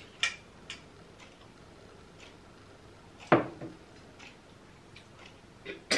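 A spoon clicking lightly against a plate while eating, several scattered light clicks, with one louder knock a little past the middle.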